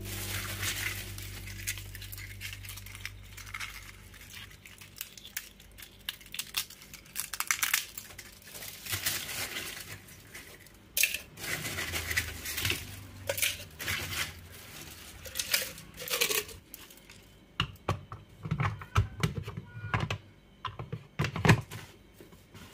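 Plastic bag rustling and crinkling while dry eggshells are handled, with shell pieces clinking into a glass blender jar in short, irregular bursts. There is a sharper knock near the end as the jar is set on the blender base.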